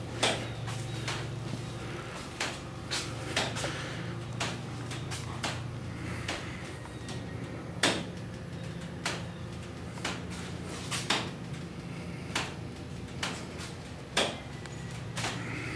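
Irregular light knocks and clicks, about one or two a second, over a steady low hum.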